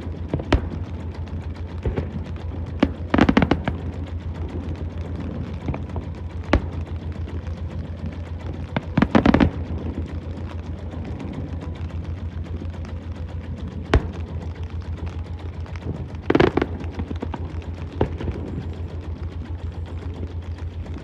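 Fireworks bursting overhead: single sharp bangs every few seconds, with three louder volleys of bangs and crackle about three, nine and sixteen seconds in. A steady low throbbing runs underneath.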